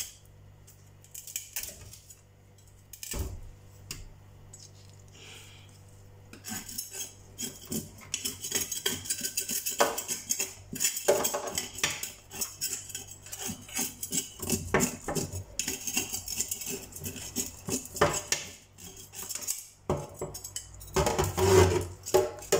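Kitchen knife scaling a whole tilapia in a stainless steel sink. It starts with a few scattered scrapes and clicks, then from about six seconds in gives rapid, continuous scraping strokes as the blade rasps the scales off.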